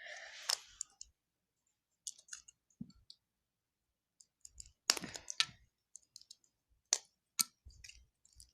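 Plastic Lego pieces clicking and clattering as they are handled, in scattered short clicks. The loudest clusters come about five and seven seconds in.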